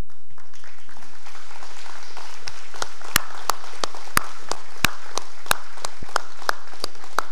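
A crowd applauding. From about two and a half seconds in, one person's louder claps stand out at about three a second.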